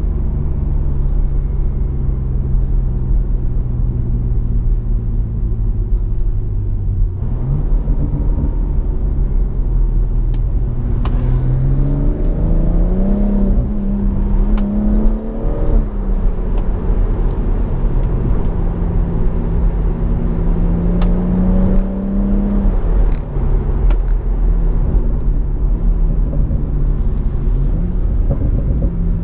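BMW M140i's turbocharged straight-six through its M Performance exhaust, heard from inside the cabin while driving. The engine's pitch holds steady at low revs, climbs about a dozen seconds in, dips briefly, holds again, then settles lower near the end. A few short, sharp clicks come through.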